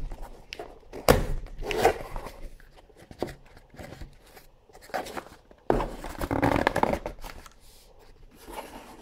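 Small cardboard mailer box handled on a wooden table: a few knocks and scrapes as it is turned over and its tuck-in lid is pulled open, then a longer rustle of cardboard about six seconds in.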